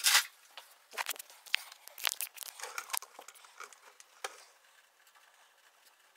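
Handling noise: scattered light clicks and rustling from hands working around the drawer and cabinet, dying away to quiet about four seconds in.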